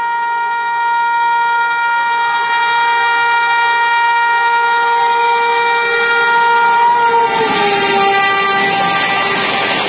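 Electric locomotive horn sounding one long, steady blast as an express train approaches at speed. About seven seconds in, the horn's pitch drops as the locomotive passes, and the rushing noise of the passing train swells.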